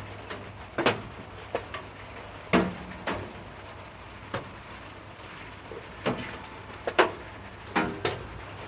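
Irregular sharp knocks and clinks, a few with a short ring, over a steady low hum.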